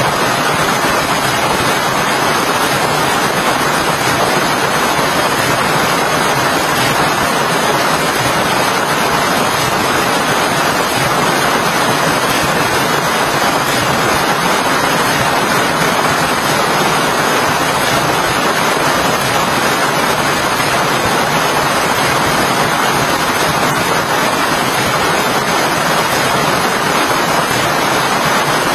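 Steady, even hiss of heavy rain, unchanging throughout.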